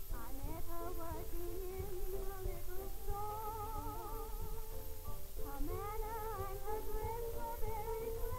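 A woman singing a song in long held notes with a wide vibrato, with a brief break about five and a half seconds in, over instrumental accompaniment. This is an early 1930s film soundtrack with a steady low hum underneath.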